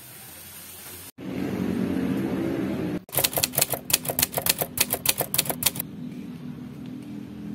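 Typewriter sound effect: a quick, even run of key clacks, about seven a second, starting about three seconds in and lasting nearly three seconds, as on-screen text types out.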